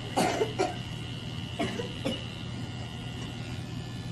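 Electric T-blade hair trimmer running with a steady hum, with four short, sharp sounds in the first two seconds.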